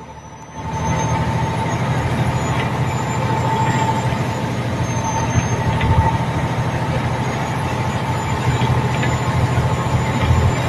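Heavy vehicle engine running steadily with a low rumble, with a thin steady whine above it.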